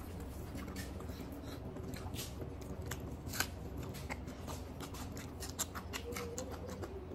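Eating by hand: moist clicks and smacks of rice and chicken curry being squeezed together and chewed with the mouth open, irregular and fairly quiet, with one sharper click about halfway through, over a steady low hum.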